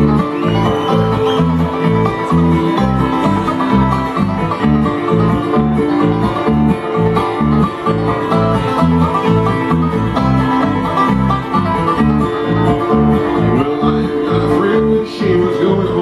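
Live bluegrass band playing an instrumental passage: banjo and guitar picking over a steady, regular alternating bass line.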